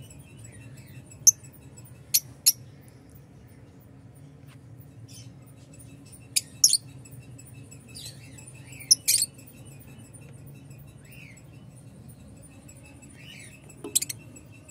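Rosy-faced lovebirds giving short, shrill chirps, one or two at a time every few seconds, over a faint low steady hum.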